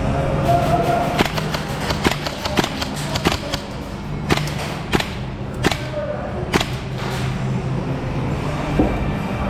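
Airsoft gun firing about a dozen single shots as sharp snaps at uneven intervals, mostly in the first two-thirds, over steady background music.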